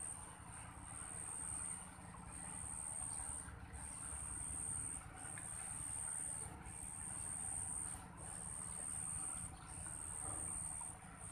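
Insects trilling in one continuous high-pitched note that stops briefly about every second and a half, over a low steady rush.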